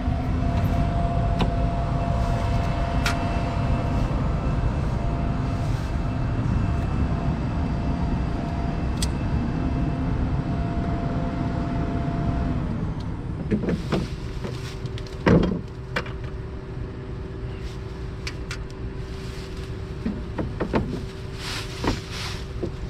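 An engine running steadily with a low rumble and held tones; about thirteen seconds in the running note changes and drops a little, and a few sharp knocks or clanks follow.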